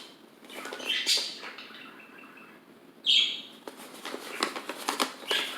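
Rustling and crinkling of clothes and packaging being handled in a box, in short scattered bursts, with one sharper, high chirp-like squeak about three seconds in.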